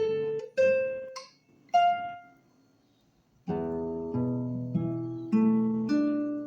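Solo classical guitar playing a slow passage: a few single plucked notes ring out and fade, a pause of about a second, then chords and notes resume.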